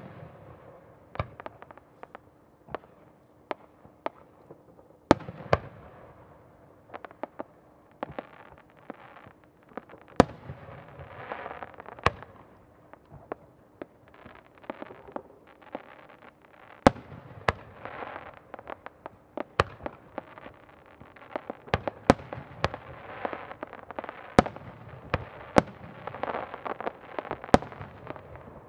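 Aerial firework shells bursting in quick succession: many sharp bangs at irregular intervals, with a dense crackle between them that grows thicker in the second half.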